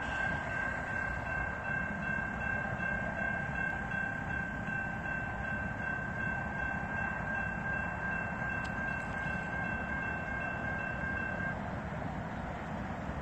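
Idling diesel freight locomotives: a steady low engine rumble with a steady high-pitched whine over it that cuts off about eleven and a half seconds in.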